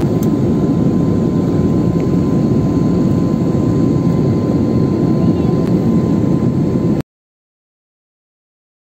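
Steady cabin noise of a jet airliner in cruise flight: a low, even rush with a faint steady whine. It cuts off abruptly to dead silence about seven seconds in.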